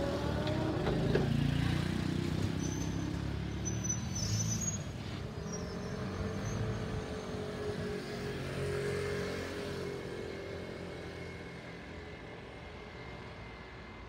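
Two-car ex-Keio 3000 series electric train pulling away on the Asanogawa Line: the rumble of its motors and wheels on the rails, with a steady hum, fading steadily as it draws away.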